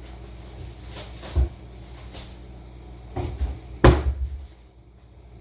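A few scattered knocks and a single loud bang about four seconds in, the kind of sound a cupboard door or bin makes when handled, while a trash bag is being put into the trash can.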